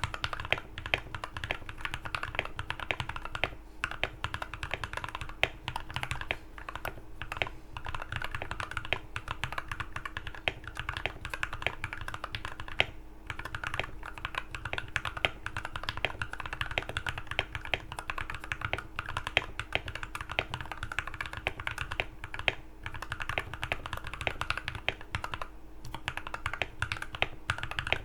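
Rapid, continuous typing on an Akko MOD004 mechanical keyboard with Thick Thock linear switches and PBT OSA keycaps, tape-modded with a silicone-damped case, giving a marbly clack on each keystroke. It breaks off briefly a few times.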